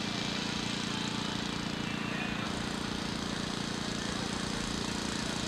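A steady engine hum at a constant speed, droning evenly with no revving.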